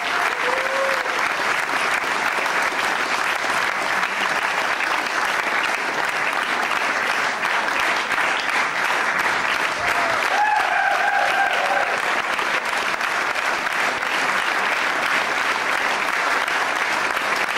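Theatre audience applauding steadily, with a short held call from someone in the crowd about ten seconds in.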